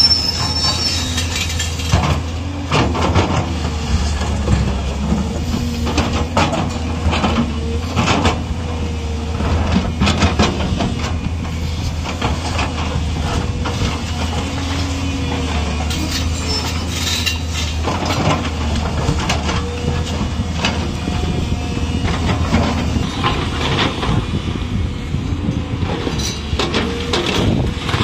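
JCB 215 LC tracked excavator's diesel engine running steadily under load, with a hydraulic whine rising and falling as the boom and bucket move. Irregular clanks and scrapes of the steel bucket against rock and dirt while it digs out the road cut.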